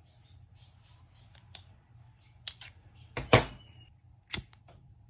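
Small plastic scissors snipping fishing line: a handful of sharp clicks and snaps, the loudest a little over three seconds in and another just after four seconds.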